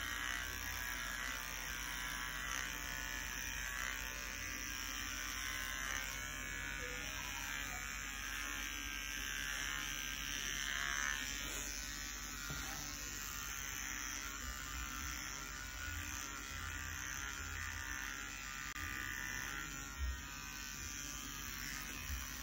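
Electric hair clippers running with a steady buzz as they cut short hair close to the scalp.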